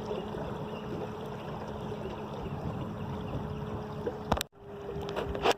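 Electric trolling motor running steadily, driving the canoe at speed, a steady hum over the rush of water along the hull. A sharp click about four seconds in, with a brief moment of near silence after it.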